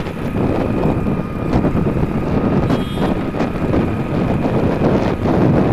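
Wind buffeting the microphone and road noise from a Hero Splendor motorcycle cruising along a highway, its engine running steadily underneath. A brief high tone sounds about three seconds in.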